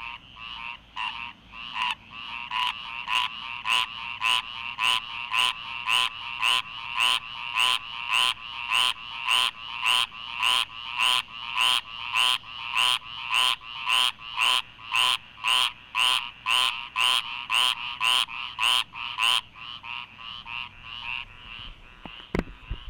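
A chorus of frogs calling, very loud, with one call repeated about twice a second that stops near the end while the softer chorus carries on.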